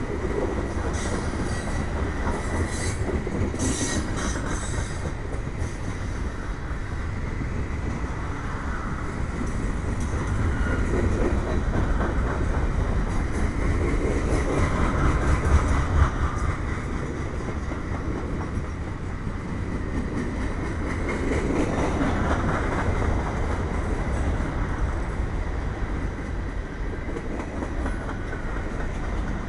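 Freight cars of a mixed freight train rolling past close by: a steady rumble of steel wheels on rail, with high-pitched wheel squeal and clicks in the first few seconds.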